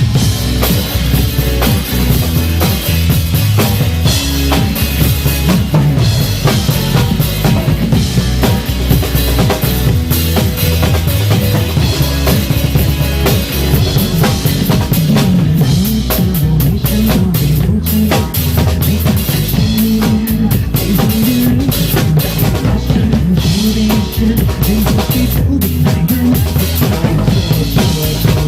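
Drum kit played live along to a recorded pop song, with bass drum and snare hits driving a steady beat over the music.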